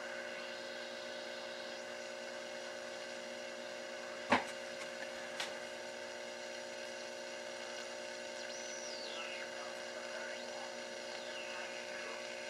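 Homebrew AM reflex receiver, tuned to the top of its dial where it picks up shortwave utility stations, heard through its audio amplifier. It gives a steady hum and hiss, with faint whistles falling in pitch about eight and about ten seconds in. A sharp click about four seconds in is the loudest sound, and a smaller click follows a second later.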